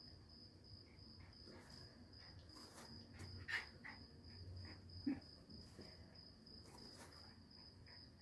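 Near silence, with a faint high-pitched chirp pulsing about four times a second throughout and a couple of soft rustles or knocks around the middle.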